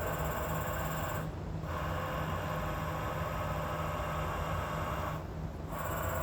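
Chevalier vertical mill's table jogging slowly along the X axis under its CNC axis drive motor: a steady motor whine over a low hum, the whine dropping out briefly twice, about a second and a half in and again about five seconds in.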